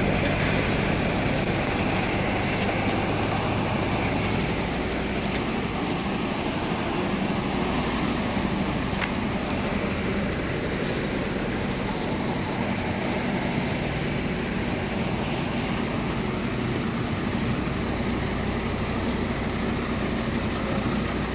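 Steady low drone of a heavy truck's diesel engine running, a little louder in the first few seconds.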